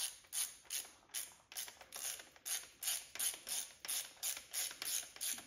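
Socket ratchet clicking in a steady run, about three clicks a second, as it drives the 14 mm bolt of a timing-belt pulley into a Subaru EJ257 engine.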